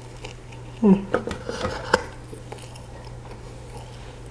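A person biting into and chewing a Big Mac close to the microphone, with a short voiced sound from the eater about a second in and a few sharp clicks over the next second, then quieter.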